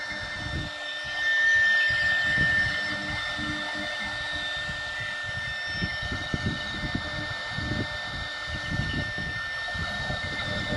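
CNC router spindle running with a steady high whine while its bit cuts through HDPE plastic sheet, with an uneven low rumble from the cut. It gets louder for a couple of seconds about a second in.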